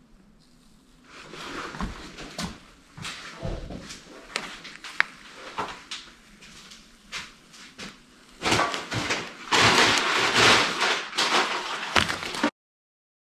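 Decal backing paper crinkling and rustling close up as a Mylar decal is pressed onto painted sheet metal and its backing peeled off, with scattered sharp clicks and taps. The rustling is heaviest near the end, then cuts off abruptly.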